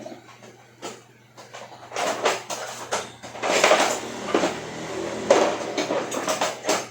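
Scraping and scrubbing on a circuit board to clear off stray solder splatter left from resoldering: a few light clicks, then about two seconds in a run of rough, scratchy strokes that get loudest in the middle and go on to the end.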